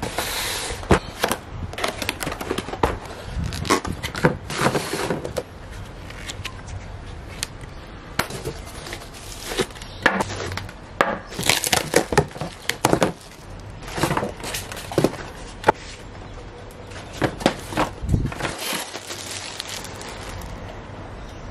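Unboxing a glass bathroom scale: a run of irregular knocks, scrapes and crinkles as the cardboard box is opened, the foam packing pieces are pulled out and the plastic-wrapped scale is handled and set against a wooden slatted table.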